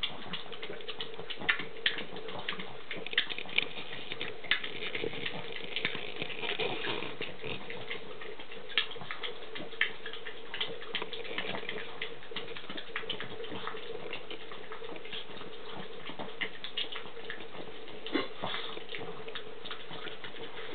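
Boston terrier puppies moving about and making small squeaks and grunts, with many light scratches and clicks, over a steady hum.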